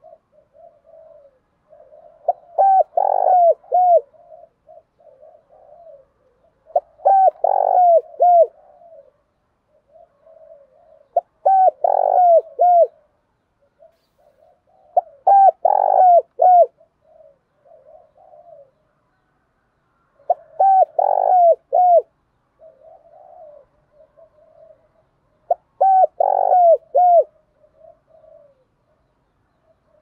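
Spotted dove giving its fighting challenge call. A loud phrase of several coos comes about every four to five seconds, six times, with soft, quiet cooing between the phrases.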